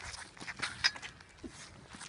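Scattered short knocks and scuffs at an uneven rhythm, the sharpest just under a second in.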